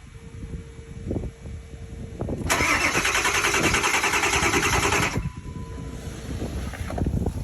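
Ford F-350's starter cranking the engine in a fast, even rhythm for about two and a half seconds, then cutting off abruptly without the engine catching: a no-start.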